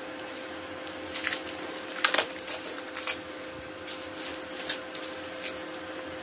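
Scattered light clicks and crackles of hands handling a coiled network cable, over a steady low hum.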